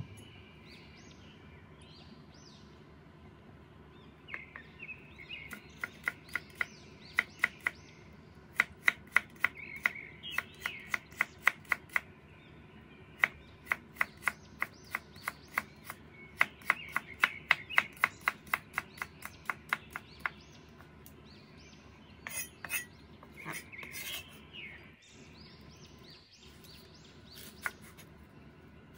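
Cleaver chopping carrot slices into thin strips on a wooden cutting board: quick, sharp knocks of the blade on the board, about five a second, in long runs with short pauses.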